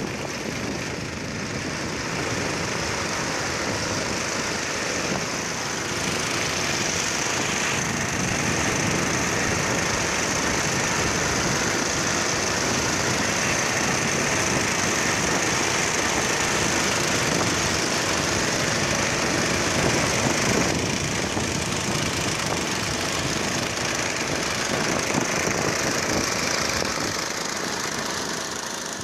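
Fishing boat's engine running steadily under way, mixed with the splash of spray against the hull and wind on the microphone in a rough, rainy sea.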